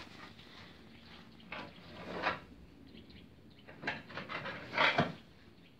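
A wooden-handled hand tool scraping and rustling across a straw-strewn stable floor, in two rough spells: one about a second and a half in, the other from about four to five seconds.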